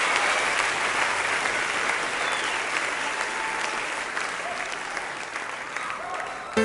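Concert audience applauding, with a few scattered shouts, the applause slowly dying down.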